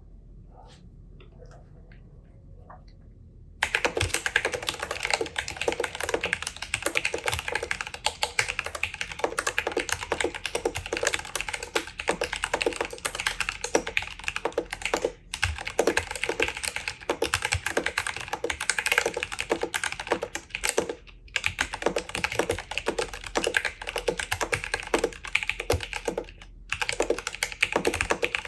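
Nullbits Snap 75 mechanical keyboard with Durock T1 tactile switches being typed on quickly, a dense run of key clacks. The typing starts about three and a half seconds in and stops briefly three times.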